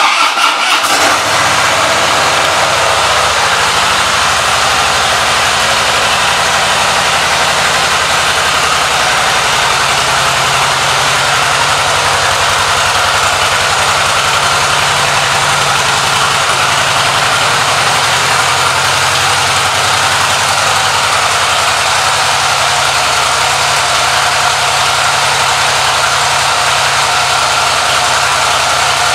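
2014 Harley-Davidson Softail Slim's air-cooled Twin Cam V-twin, just started, a little uneven for about the first second and then idling steadily.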